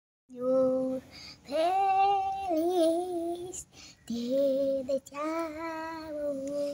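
A young boy singing a tune unaccompanied, in held notes across four short phrases with brief breaks between them.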